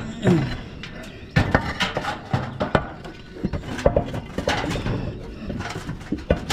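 Concrete roof tiles clacking and scraping against each other as they are lifted and set back in place: a run of irregular hard knocks starting about a second and a half in.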